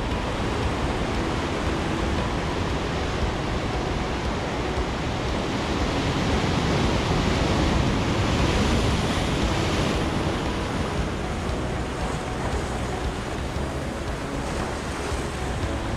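Surf breaking and washing on a rocky shore in heavy swell, with wind on the microphone; the wash swells louder around the middle.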